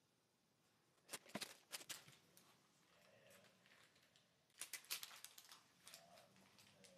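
Faint handling sounds: baking paper crinkling and light clicks of a kitchen knife as a soft block of tallow soap is cut into bars and the bars are lifted off. Two short clusters of crackles, about a second in and again about halfway through.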